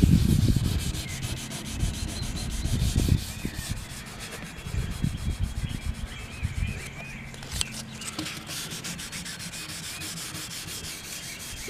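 Fine 1000-grit sandpaper rubbed back and forth by hand over the finish of an acoustic guitar's spruce top, in quick scratchy strokes, loudest for the first few seconds and then lighter. It is levelling the CA glue over a repaired top crack.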